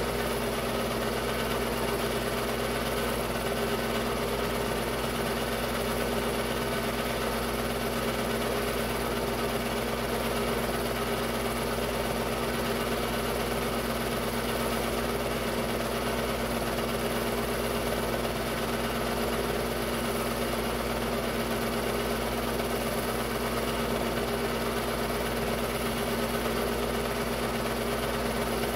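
Technicolor 810 8mm film-loop projector running: a steady, unchanging mechanical drone from its motor and film-transport mechanism.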